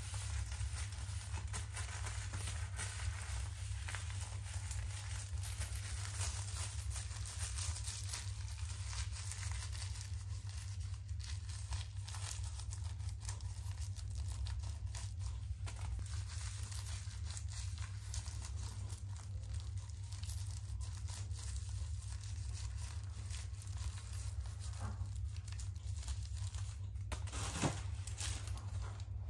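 Thin plastic shopping bag crinkling and rustling as it is flattened and folded by hand into a tight triangle, with irregular crackles and one louder crackle near the end. A steady low hum runs underneath.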